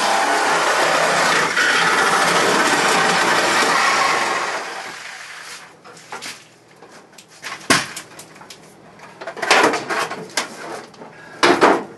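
A power tool cutting through car floor-pan sheet metal, running steadily and then winding down about four to six seconds in. Then a few loud metallic clanks as loose pieces of the cut-out floor pan are handled and pulled out.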